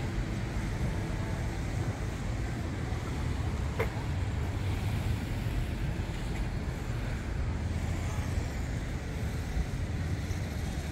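Steady low rumble of road traffic, with wind on the microphone; a single light click about four seconds in.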